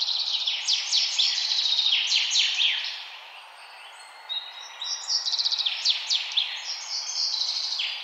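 Indian ringneck parakeets chattering: rapid strings of shrill, quick-falling chirps in two bouts, the first over the first three seconds, the second starting about four seconds in.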